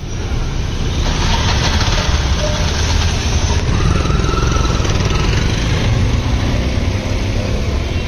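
Road traffic: motor vehicle engines running, a loud steady noise with a low rumble.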